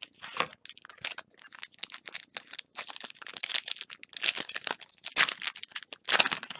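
Foil wrapper of a Pokémon XY Flashfire booster pack being torn open and crinkled in the hands, with dense, irregular crackling that is loudest in the middle and near the end.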